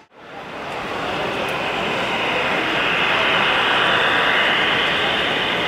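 Model train rolling along the layout track, a diesel locomotive pulling a string of boxcars: a steady rushing of wheels and motor that fades in from a brief dropout at the start and grows louder toward the middle as the cars pass close.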